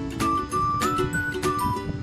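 Background music: a whistled melody over sustained chords and a light, regular beat.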